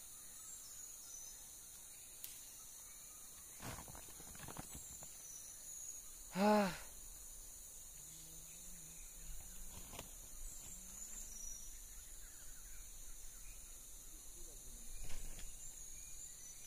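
Forest ambience: a steady, high-pitched insect chorus, with a few faint rustles. About six and a half seconds in comes the loudest sound, a single short call whose pitch rises and falls.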